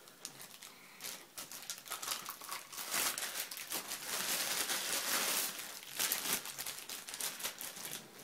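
Plastic bubble-wrap packaging crinkling and crackling as hands rummage through it. It is faint for about the first second, then dense and loudest in the middle.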